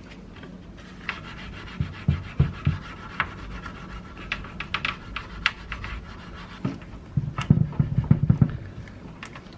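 Rubbing and scrubbing on the typewriter's plastic and parts as it is cleaned, with irregular light knocks from handling it and a quick cluster of knocks near the end.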